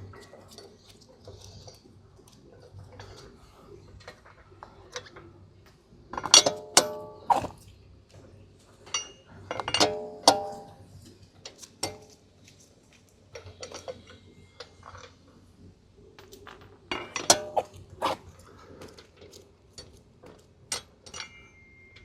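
Metal wheel bolts and a lug wrench clinking and clanking as the bolts are taken out of a car's wheel hub. There are scattered sharp metallic knocks that ring briefly, with the loudest clusters about six, ten and seventeen seconds in.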